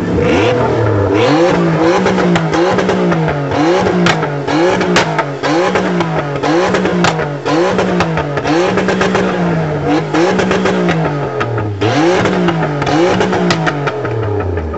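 Pickup truck's engine revved hard over and over in a steady rhythm, rising and falling about once a second, with sharp exhaust pops as flames shoot from its exhaust stacks.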